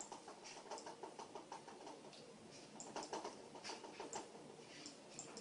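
Faint, irregular small clicks and taps, a few each second.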